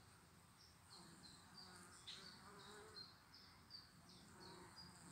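Honeybees buzzing faintly in flight around the hive entrance as foragers come and go. A series of short high chirps repeats about three times a second over the buzz.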